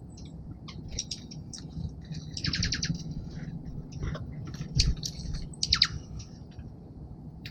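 Small songbirds at a bird feeder calling: scattered short high chips and a quick chattering run of notes, with a knock about two-thirds of the way through.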